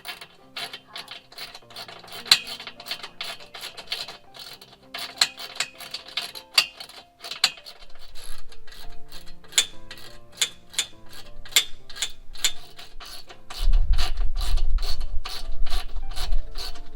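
Ratchet wrench clicking in quick, fairly regular strokes as screws are tightened, over background music. A loud low rumble comes in about three-quarters of the way through.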